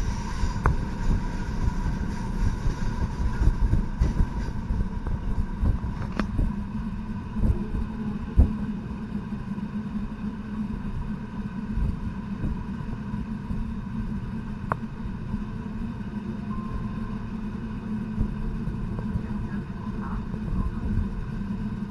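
ALn 668 diesel railcar under way: a steady low rumble of its underfloor diesel engines and wheels on the rails, with faint steady engine tones and a few sharp clicks and knocks, the strongest about eight seconds in.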